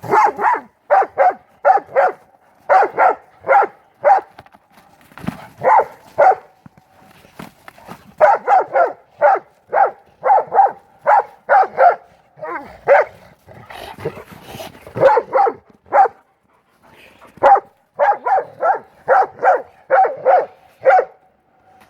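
Pit bull–mastiff mix dog barking in quick runs of short barks, about two or three a second, with a few short breaks: griping at its brother over a ball.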